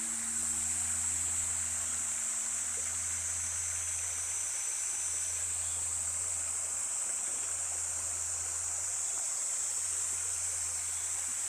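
Buddhist temple bell for the evening service ringing out after a strike: its upper tones fade over the first few seconds while a low hum lingers. A steady high hiss runs underneath.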